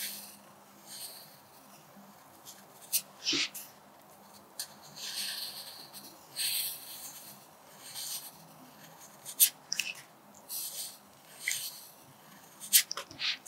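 Graphite pencil scratching across paper as cursive letters are written, in short separate strokes lasting up to about a second, with a few sharp ticks as the tip touches down.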